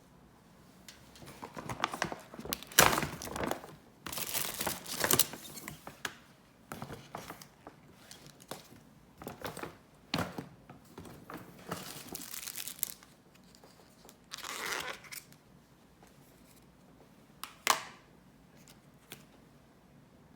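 Irregular rustling and crinkling with scattered clicks and knocks, as of something being handled at close range in a small room, in uneven bursts with short pauses between.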